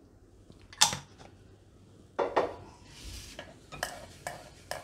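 Sharp clacks and knocks of kitchen utensils against a wooden rolling board, the loudest about a second in. In between comes a soft rubbing as a hand spreads oil over the board.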